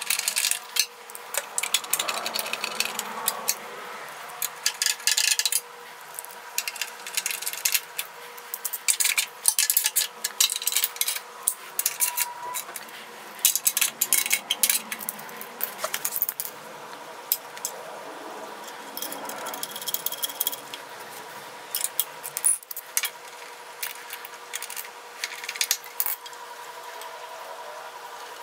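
Socket ratchet clicking in quick bursts, with metal tools and bolts clinking, as the recoil starter cover is bolted back onto a small engine. A faint steady hum sits underneath.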